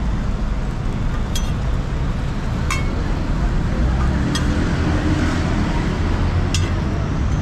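Steady low rumble of street traffic, broken by four sharp metallic taps a second or two apart as a metal spatula strikes the flat steel roti griddle while a roti is folded.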